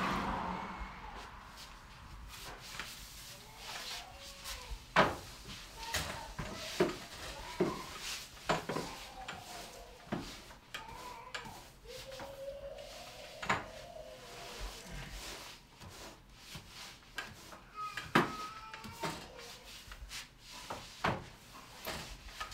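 Long-handled oven tools knocking and scraping against the hearth and door frame of a brick wood-fired bread oven: irregular sharp knocks every second or few seconds, with scraping between them.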